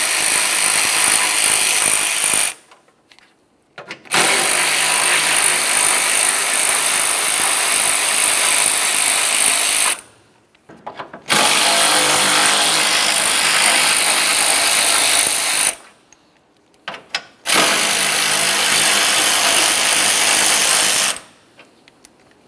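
Electric ratchet running a 10 mm socket, spinning out the radiator support bracket bolts. It runs in four long stretches of several seconds each, with short pauses between them.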